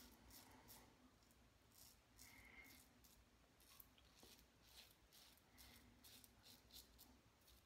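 Faint, crisp scraping of a stainless steel double-edge safety razor with a Gillette Super Platinum blade cutting whiskers on the upper lip, in quick repeated short strokes.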